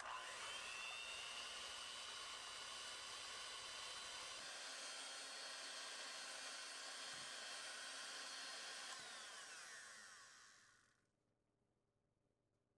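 Electric hand mixer running steadily with a high motor whine, its beaters whipping eggs and sugar until pale and fluffy. The sound dies away about ten seconds in.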